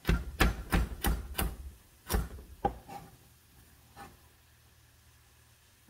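Chef's knife chopping a carrot on a plastic cutting board: five quick chops about three a second, then two more strokes a little after two seconds in and a faint tap near four seconds.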